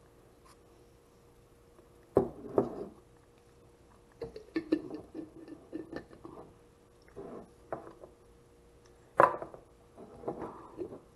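Glass pasta-sauce jar and its metal lid being handled on a stone countertop: a run of knocks and clinks, loudest about two seconds in and again about nine seconds in.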